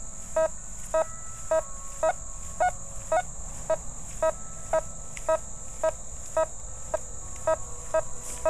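Nokta Fors Core metal detector giving short, mid-pitched target beeps, about two a second, one on each sweep of the coil over a dime buried under a rusty nail. With full iron discrimination the nail is tuned out and the dime gives a clean, repeating signal.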